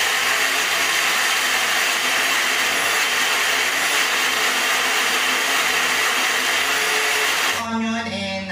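Small countertop electric blender running steadily, pureeing garlic, onion and fruit with a little water into a runny sauce. The motor cuts off about a second before the end.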